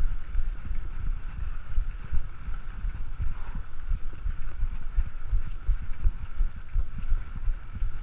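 Wind buffeting and ride rumble picked up by a GoPro on a mountain bike rolling over a paved path: an irregular low thumping with no steady rhythm.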